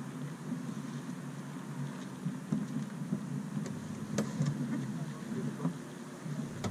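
Steady low rumble of wind buffeting the microphone aboard a sailboat, with a sharp click about four seconds in.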